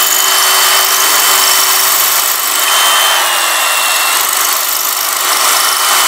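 Kobalt 24V brushless hammer drill driving a masonry bit into a brick wall, running steadily without a break.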